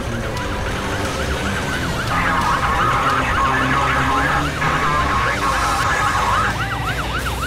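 Emergency-vehicle siren sound effect in a rapid yelp, its pitch swinging up and down several times a second. A second overlapping siren joins it and makes it louder from about two seconds in until near the end.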